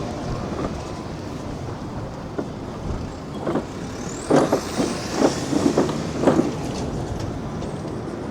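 Road traffic rumbling past at a street crossing, with a run of sharp knocks about halfway through.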